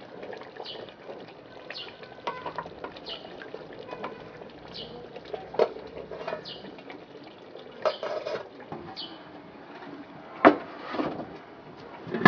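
Tomato stew stirred with a wooden spoon in an aluminium pot, then aluminium pot lids clanking and knocking as one pot is covered and another opened, with sharp knocks about halfway through and near the end.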